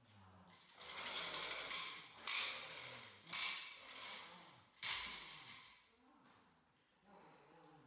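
Puppy tugging and thrashing on a trainer's bite-suit sleeve: rustling and scuffling of the suit fabric, with three sharp smacks about two, three and a half, and five seconds in.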